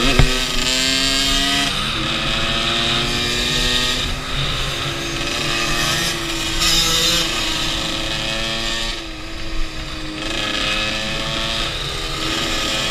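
Dirt bike engines revving hard on the move, the pitch climbing through each gear and dropping at the shifts several times. A sharp knock sounds just at the start.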